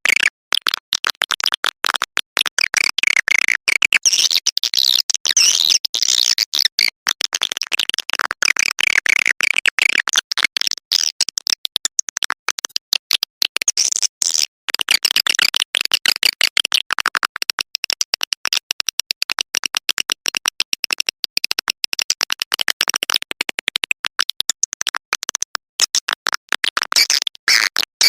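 Swiftlet lure recording: swiftlets twittering in dense, rapid high-pitched chirps and clicks, broken by many brief cuts. It is a calling sound played to draw swiftlets into a nesting house.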